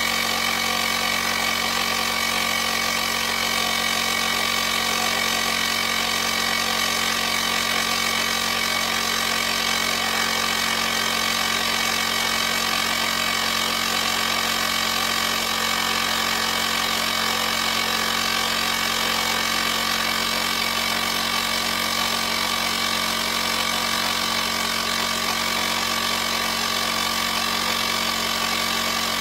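UIBI portable jump starter's built-in electric air compressor running steadily while pumping up a car tire, a constant mechanical drone with several held tones that does not change. The tire is being brought up to its 39 psi target.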